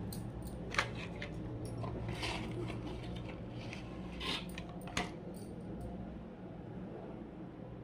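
A few light clinks and taps from small hard objects being handled, spread over several seconds above a low steady hum.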